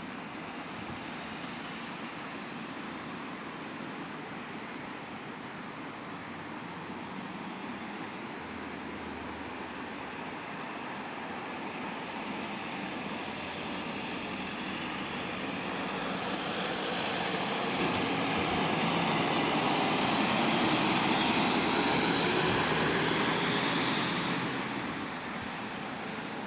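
Steady rush of a mountain waterfall, with an engine passing by about halfway through, swelling in loudness and then fading, its pitch sliding as it goes. A single sharp click near the loudest point.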